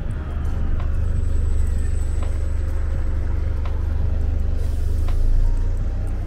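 Red double-decker bus running beside the kerb, its engine giving a steady deep rumble. A brief hiss of air about four and a half seconds in.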